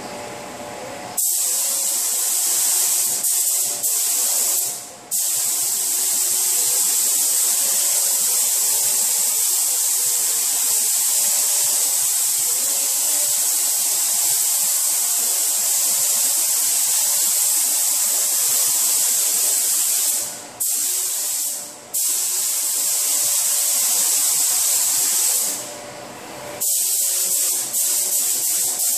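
SATA paint spray gun spraying base coat: a loud, steady high hiss of compressed air and atomised paint. It starts about a second in and breaks off briefly several times as the trigger is released between passes.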